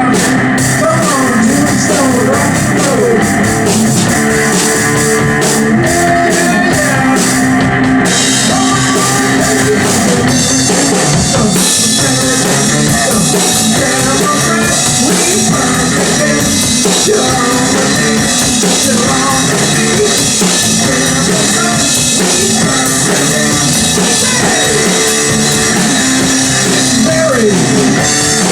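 Rock band playing a loud, dense song with drum kit and guitar; the sound gets fuller about eight seconds in and again near twelve seconds.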